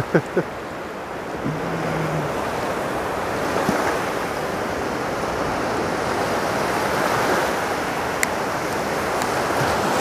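Small waves breaking in foam and washing up the shore: steady surf noise that swells and eases, with some wind on the microphone.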